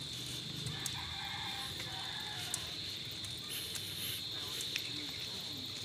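Crickets chirring: a steady, high-pitched insect chorus that does not let up, over a low rumble of riding noise with a few faint clicks.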